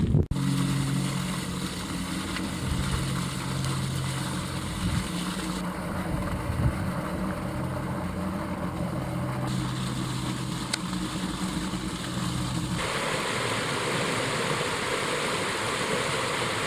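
A steady low hum with several held low tones, engine-like, for most of the stretch. About three-quarters of the way in it cuts suddenly to the even rush of a stream tumbling over rocks.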